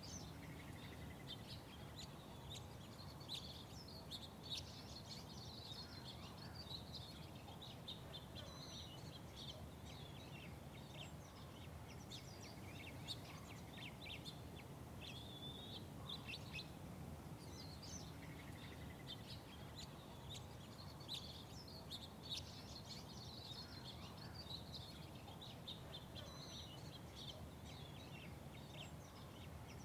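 Small birds chirping busily and continuously, over a steady low hum of background noise.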